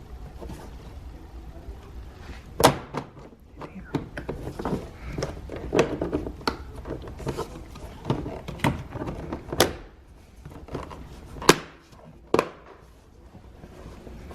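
Plastic window switch panel being worked and snapped into the door trim: a run of small clicks and knocks, with several sharp snaps.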